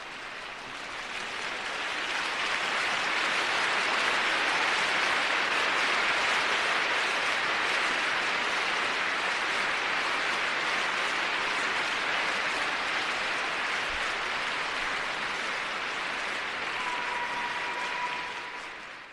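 Crowd applauding, swelling over the first few seconds, holding steady, and fading away near the end.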